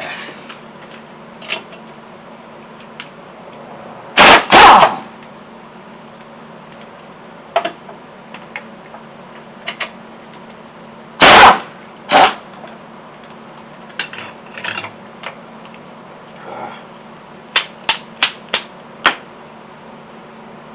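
Impact wrench firing in short, very loud bursts, twice in quick succession, then twice more, spinning off a wheel's lug nuts. Near the end come a quick run of sharp metallic clicks.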